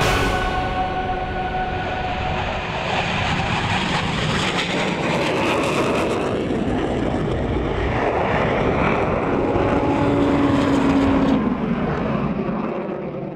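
Boeing F/A-18 Hornet's twin General Electric turbofan jet engines running at full afterburner thrust through the takeoff run and climb-out: a loud, steady rush of jet noise with a high whine in the first couple of seconds, easing off near the end.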